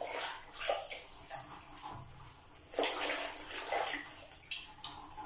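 Green Scotch-Brite scouring pad scrubbing the inside of a ceramic toilet bowl. The water in the bowl swishes in irregular strokes.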